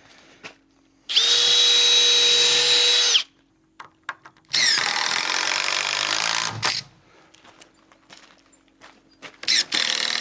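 Power drill driving screws into a timber joist, in three runs of about two seconds each; the second run rises in pitch as it spins up.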